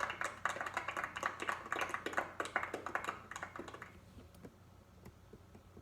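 A group of people clapping their hands: rapid, uneven claps that thin out and fade away about four seconds in.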